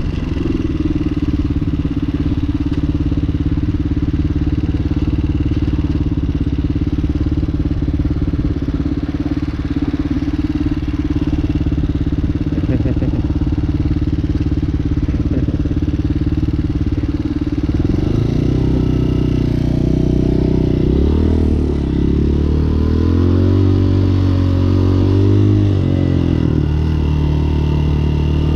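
Hawk 250 dual-sport motorcycle's single-cylinder four-stroke engine idling steadily while stopped. About 18 seconds in, it revs up and pulls away, the engine pitch rising and falling through several gear changes.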